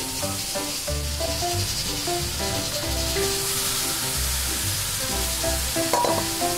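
Oil sizzling steadily in a cast-iron wok as chilli bean paste, scallions and ginger are stir-fried and the seared fish is tipped in, with background music playing over it.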